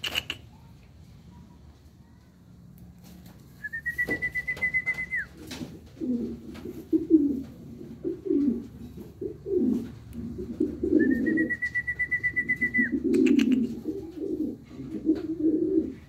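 King pigeons cooing in low, repeated bursts from about six seconds in. Twice, a high, rapidly pulsed trill of a second and a half or so cuts in, the first about four seconds in and the second over the cooing.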